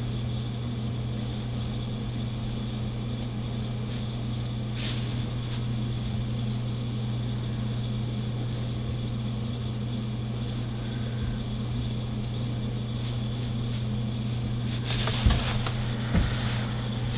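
Steady low electrical hum with a faint high whine over it, and brief rustling with two soft knocks near the end.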